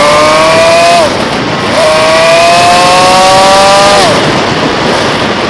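Motorcycle engine accelerating under a steady rush of wind noise. Its whining note climbs for about a second and drops, then climbs again for about two seconds before falling away sharply.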